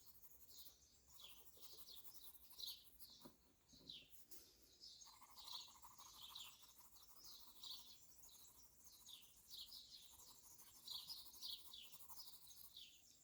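Faint outdoor birdsong: many short, quick chirps from songbirds repeating throughout. A faint steady drone sits underneath from about five seconds in until near the end.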